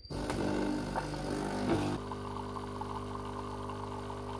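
Philips bean-to-cup espresso machine starting a cup: a short beep as the button is pressed, the bean grinder running for about two seconds, then a steady hum from the brewing pump as coffee pours into the mug.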